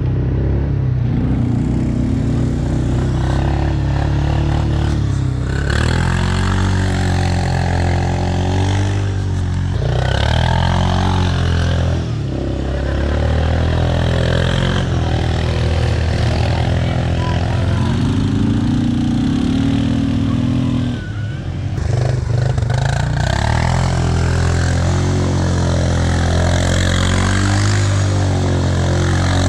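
Four-wheeler (ATV) engine running as it is ridden around a track, the engine note repeatedly rising and falling as the rider speeds up and eases off.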